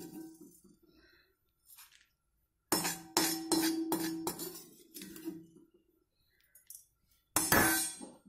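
Steel spatula and perforated ladle knocking and scraping against an iron kadai while scooping out roasted rice grains. Each knock leaves a short ringing tone. The knocks come in two clusters, one a few seconds in and one near the end, with quiet between.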